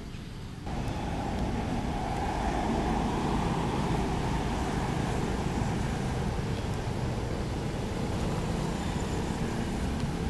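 Steady low rumble of a motor vehicle engine running, which comes in abruptly about a second in and then holds even.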